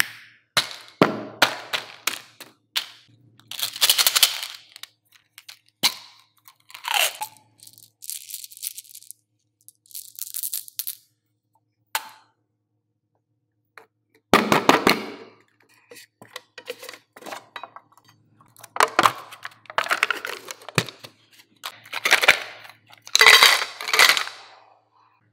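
Candy packaging being handled and opened by hand: plastic and paper wrapping crinkling and tearing, lids and caps clicking open, and gum pellets tumbling out. It comes in short bursts of rustling and sharp clicks with quiet gaps between.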